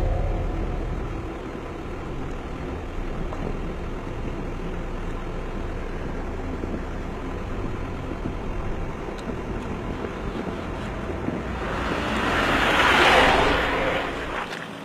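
Old jeep driving on a paved road: a steady engine and road rumble heard from inside the cabin. Near the end the jeep passes close by, its noise swelling loudly and then cutting off suddenly.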